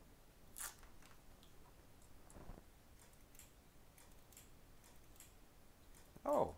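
Faint clicks and light handling noises on a workbench while a power-supply lead is clipped onto an iPhone logic board in its holder, with a brief rustle about half a second in and a small knock a couple of seconds in.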